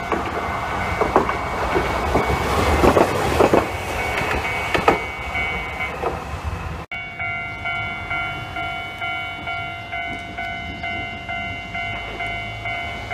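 A Japanese level-crossing warning bell rings in a steady repeating alarm, about two strokes a second. During the first few seconds a Hankai tram rolls over the crossing, its wheels clacking over the rail joints. After a sudden cut about seven seconds in, the bell rings on alone.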